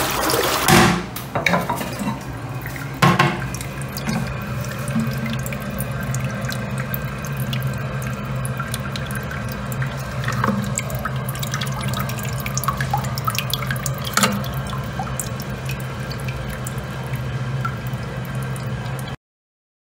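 The end of a toilet flush, then water running steadily into the cistern through its blue plastic fill valve, with a couple of knocks in the first few seconds. The fill valve is broken, so the toilet runs as though it were being flushed.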